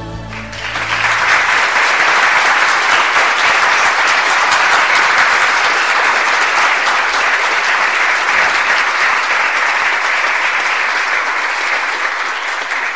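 Applause from an audience, swelling in about a second in as the last notes of a song die away, holding steady, then tapering off near the end.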